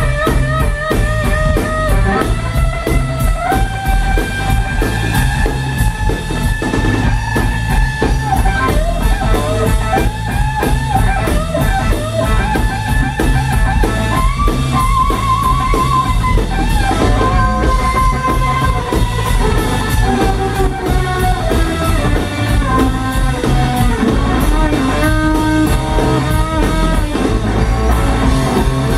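A live blues-rock trio playing an instrumental. An electric guitar takes the lead with long held notes, string bends and vibrato, over a steady drum-kit groove and electric bass.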